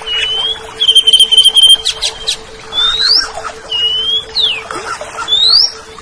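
Cucak ijo, a green leafbird, singing: loud whistled notes that mostly glide upward, a fast trill of repeated notes about a second in, a few sharp clicks, and a quick falling slur near the end. A steady low hum runs underneath.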